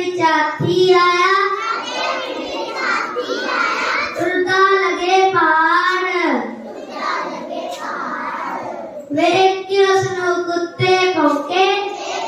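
A child singing a Punjabi song, holding long notes between short breaks.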